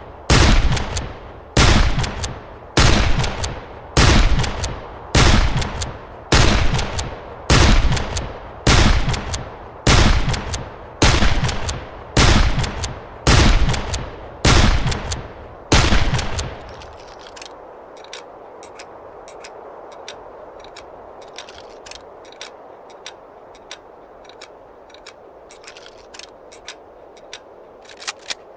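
Henry lever-action rifle firing about fifteen shots at an even pace, roughly one a second, each with a short echoing tail. After the last shot come some eleven seconds of small metallic clicks, with two louder clicks near the end.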